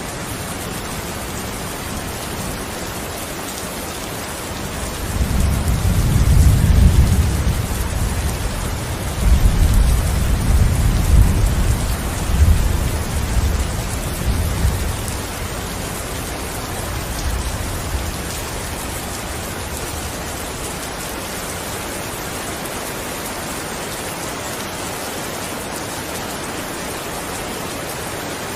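Steady rain falling, with a long low rumble of thunder that swells in about five seconds in, rolls in two or three waves and dies away by about eighteen seconds.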